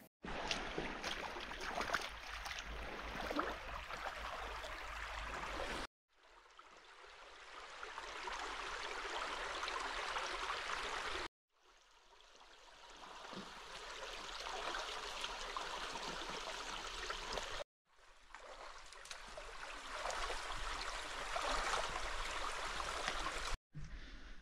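Running water, a steady rushing sound heard in four stretches that each cut off abruptly, some fading in after the cut.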